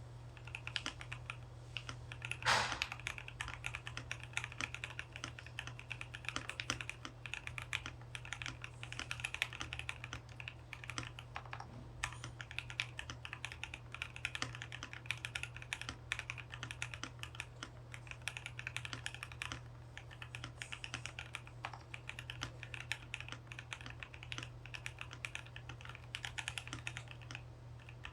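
Typing on a KBD67 Lite R1 mechanical keyboard with 78 g Seal linear switches, lubed with Krytox 205g0 and filmed: a continuous fast run of key clacks, with one louder strike about two and a half seconds in.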